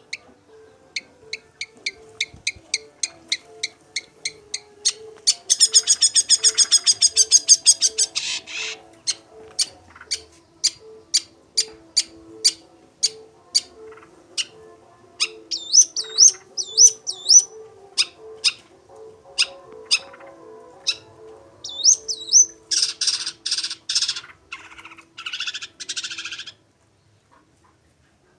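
Long-tailed shrike (cendet) singing loudly: a run of sharp, evenly repeated chips, a fast rattle about five seconds in, looping whistled notes in the middle, and harsh buzzy chatter near the end. This is the varied mimic song (materi) of a shrike in full voice (gacor).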